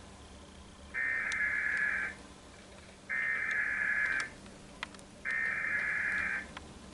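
Emergency Alert System SAME header: three bursts of digital data tone, each about a second long with about a second's pause between them. This is the coded header that opens an EAS alert.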